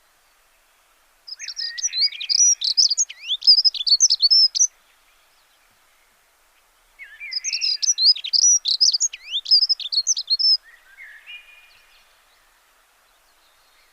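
A songbird singing two long phrases of rapid, varied high chirps and whistles, each lasting about three and a half seconds, with a short fainter call after the second.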